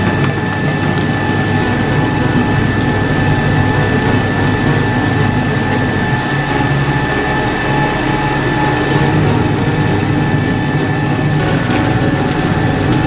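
Top-load washing machine running: a steady low mechanical hum with a thin, steady high whine over it.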